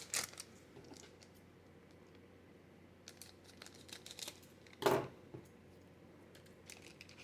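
Faint crinkling and clicking of a foil trading card pack and cards being handled, with one louder short noise about five seconds in.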